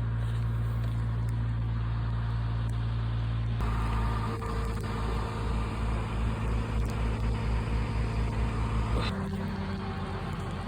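A vehicle engine running. It holds a steady note, then changes about three and a half seconds in to a pulsing low throb, as if under varying load. About nine seconds in it settles to a different steady note.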